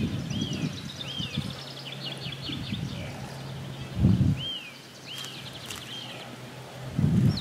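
A young bird peeping in distress in a mangrove monitor's jaws: a string of short chirps that arch up and fall, about one or two a second, with quicker small high notes in the first couple of seconds. A steady low buzz stops about four seconds in, and two heavier rustling thumps, about four seconds in and near the end, are the loudest sounds.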